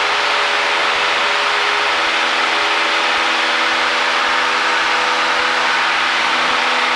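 Cessna 172's piston engine and propeller running steadily at cruise-climb power in flight, a constant drone with wind and airframe hiss over it, heard inside the cabin.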